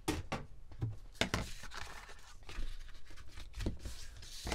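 Paper being handled and folded over, then pressed flat by hand: soft rustling and crinkling broken by several light taps and knocks.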